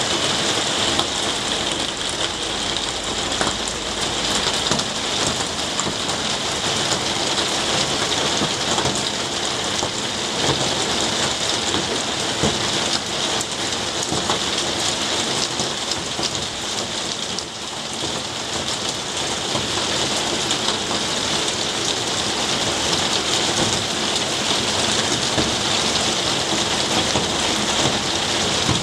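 Steady rain falling on garden foliage, pots and wet paving: an even, dense hiss of drops.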